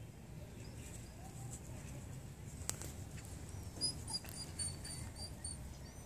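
Puppy whimpering: a faint run of short, high-pitched squeaks starting about four seconds in, over a low rumble.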